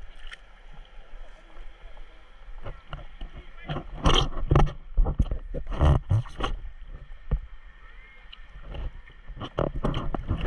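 Seawater sloshing and splashing against a camera held right at the water's surface, in irregular bursts about four to six and a half seconds in and again near the end.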